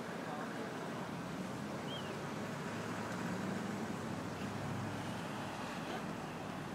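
City street traffic: a steady hum of vehicles with a low engine rumble swelling in the middle, and a brief high chirp about two seconds in.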